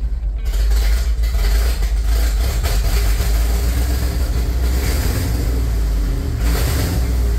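The 1975 International dump truck's 345 V8 engine running on its Holley carburetor, heard from inside the cab as a loud, steady, deep running sound.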